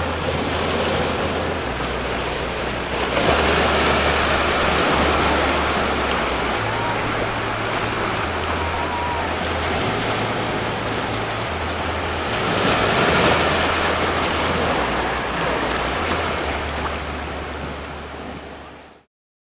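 Surf washing in over a rocky reef shoreline, a steady rushing wash that swells louder as waves come in about three seconds in and again about twelve seconds in. The sound fades out near the end.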